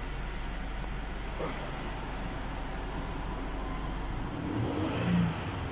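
Kia Mohave engine idling steadily after its cylinder 5 misfire was fixed, running without the misfire code.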